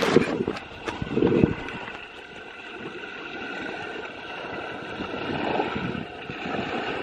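Wind buffeting the microphone in two strong gusts at the start and about a second in, over small waves lapping onto a gravel lake shore, with a steady motor hum in the background.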